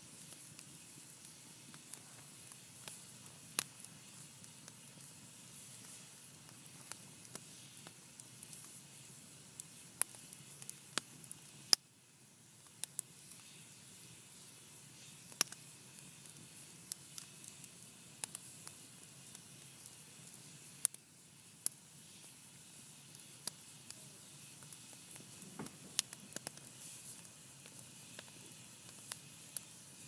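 Wood campfire of burning logs crackling: irregular sharp pops over a steady hiss, with one louder pop about twelve seconds in.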